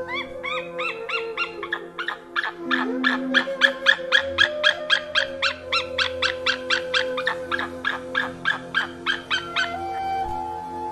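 White-tailed eagle calling: a long series of sharp yelping notes, a few spaced ones at first, then quickening to about three or four a second and stopping shortly before the end. Soft background music plays underneath.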